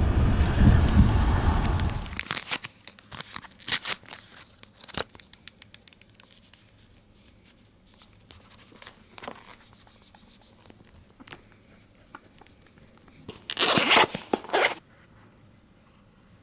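A loud, dense sound stops about two seconds in. Then comes quiet handling of packaging, with scattered clicks and rustles, and a louder tearing about a second long near the end.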